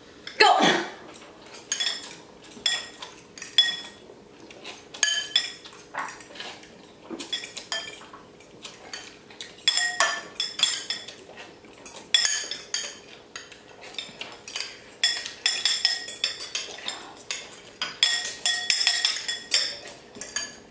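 Metal spoons and forks clinking and scraping against ceramic bowls as three people eat noodles fast: quick, irregular clinks several times a second, thickest near the end, with a short falling sound just after the start.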